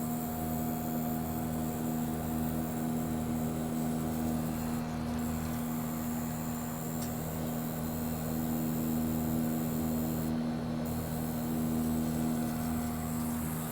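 Mitsubishi Electric Kirigamine MSZ-GV221 room air conditioner and its MUZ-GV221 outdoor unit running steadily in cooling mode. The hum carries several held tones over a low, pulsing throb.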